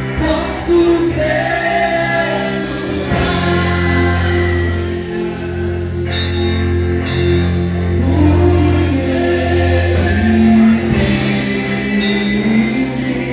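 Live church worship band playing gospel music, with voices singing over long held bass notes and regular drum hits.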